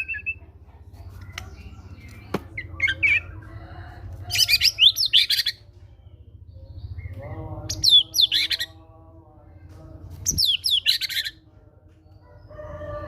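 White-rumped shama singing loud, rapid phrases of quick sweeping notes, in three bursts with softer whistled notes between them, delivering its imitated repertoire, said to include great tit calls.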